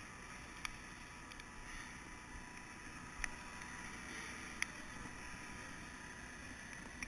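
Faint, steady background noise broken by four sharp knocks spread through it: handling knocks on a body-worn GoPro camera as its wearer moves about.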